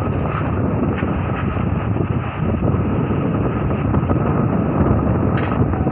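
Sandstorm wind blowing hard and steadily, rumbling on the microphone.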